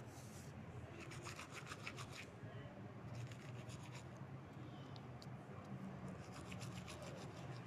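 Three short spells of quick rubbing strokes, each about a second long, over a low steady hum.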